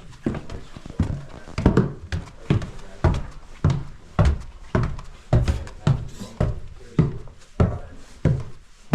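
Footsteps walking at an even pace, heavy thuds about two a second.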